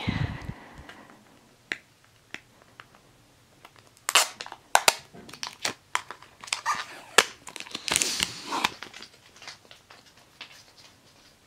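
Foil trading-card pack wrapper crinkling as it is handled, with cards rustling and clicking. It comes in scattered crackly bursts, busiest about four seconds in and again around eight seconds.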